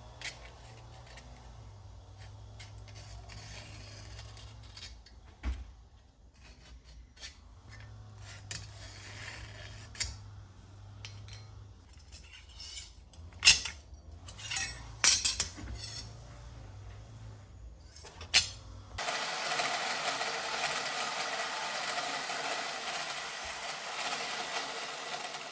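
Small steel parts being handled on a workbench: scattered light metallic clinks and taps over a low hum, the sharpest a few seconds apart in the second half. About nineteen seconds in, a steady rushing machine noise starts suddenly and runs on.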